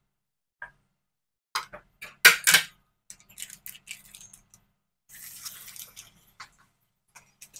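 A steel ladle clanks loudly against an aluminium kadai and a steel stovetop a few times, about two seconds in. Hot oil crackles as fritters of bottle-gourd batter deep-fry, with a burst of sizzling about five seconds in as a fresh fritter goes into the oil.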